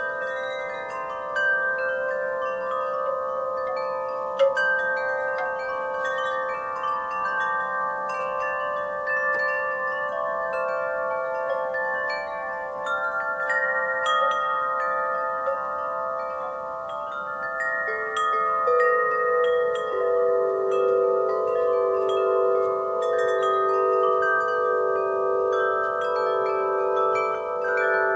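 Wind chimes ringing in a breeze: many overlapping notes struck again and again and left to ring, with the lower notes ringing out more strongly from about two-thirds of the way through.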